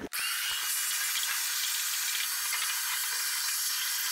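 Vacuum cleaner running steadily as it sucks debris out of the pickup cab's floor along the rear wall: an even, high hiss that comes in suddenly right at the start.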